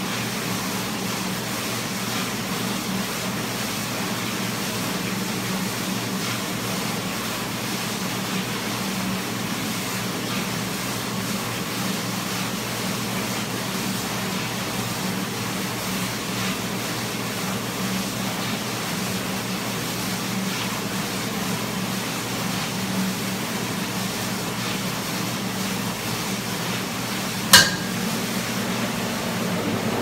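Brand-new stainless door-type commercial dishwasher running its wash cycle: a steady pump hum under the even rush of water spraying inside the cabinet. A single sharp click sounds near the end.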